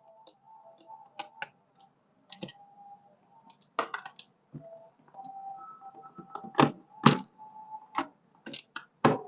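Scattered clicks and knocks of a screwdriver and screws against a blender's plastic base as it is screwed back together, with a few louder knocks in the second half.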